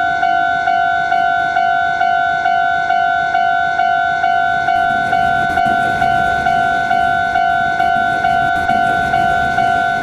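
Level crossing warning bell ringing in a steady, even rhythm of about two strikes a second. From about halfway, the low rumble of a passing train joins it.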